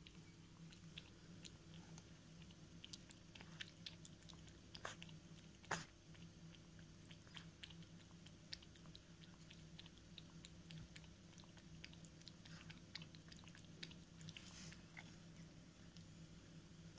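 Cat lapping milk from a bowl: faint, quick, irregular licking clicks over a steady low hum.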